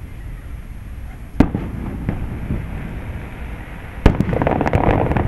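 Fireworks: a single sharp bang about a second and a half in, then another bang about four seconds in, followed at once by a dense crackle of many small pops.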